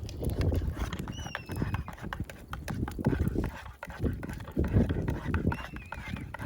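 Wood fire crackling and popping in an improvised fire hearth, with irregular sharp snaps over a low rumble. A short falling whistle sounds about a second in and again near the end.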